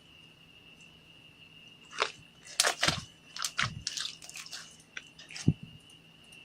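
Clear slime being squished and pressed, a run of sticky clicks, pops and squelches starting about two seconds in and stopping shortly before the end.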